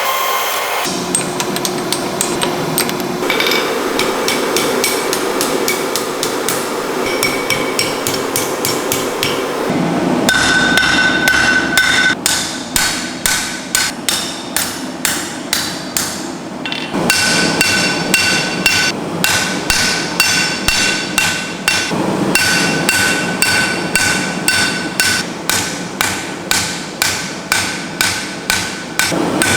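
Hammer forging a Damascus steel billet on an anvil: a long run of sharp blows at about two to three a second, each leaving a short metallic ring, with brief pauses between runs. For the first ten seconds a steady rushing noise sits under fainter strikes.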